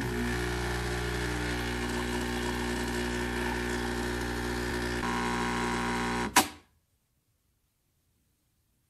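Capsule coffee machine's pump buzzing steadily as it brews a cup, its tone shifting slightly about five seconds in. About six seconds in, the brew ends with a brief, loud burst of noise, the loudest moment, and the machine stops.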